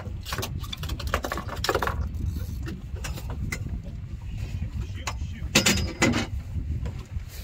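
Knocks, clicks and rattles of gear being handled aboard a small fishing boat over a steady low rumble, with the loudest cluster of knocks about five and a half seconds in.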